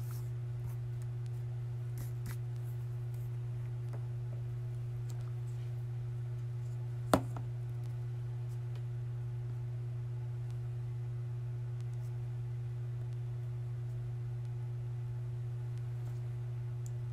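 A steady low hum, with a single sharp click about seven seconds in.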